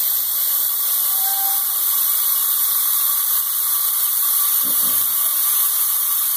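Compressed air hissing steadily through the air hose and chuck into the chamber of a 3-inch PVC pneumatic cannon, filling it to about 75 psi; the hiss means the air is still transferring and the cannon is not yet ready to fire.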